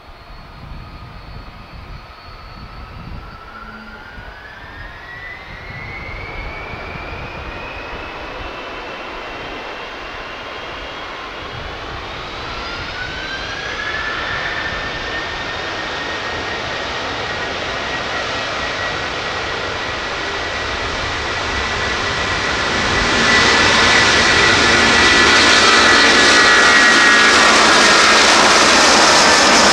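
Airbus A330-223's twin Pratt & Whitney PW4000-series turbofans spooling up to takeoff thrust: a whine that rises in pitch twice while the engine noise grows steadily louder, then a loud jet roar from about three-quarters of the way in as the airliner rolls down the runway.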